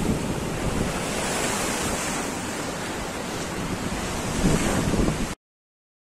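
Atlantic surf washing over shoreline rocks, a steady rushing noise with wind on the microphone. It cuts off abruptly near the end.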